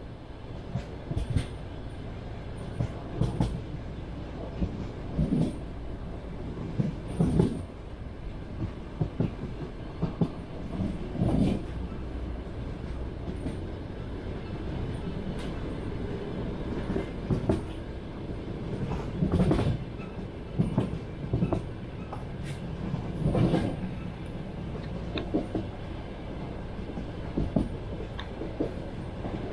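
Passenger train running on rails: a steady low rumble with the wheels' clickety-clack over rail joints, knocks coming in short clusters every second or two.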